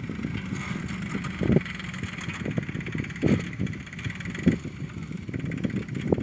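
Force OX25 tractor engine running steadily while pulling a plough, with a few short thumps.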